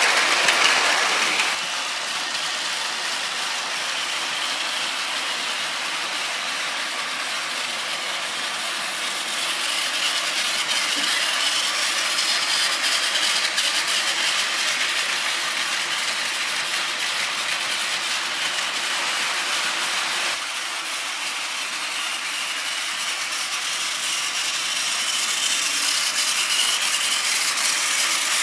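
Plarail battery-powered plastic toy trains, among them a 12-car E1 Series MAX Shinkansen model, running on plastic track: a steady motor whir with the clatter of the wheels over the track. The level drops and rises a few times as trains come near and move away.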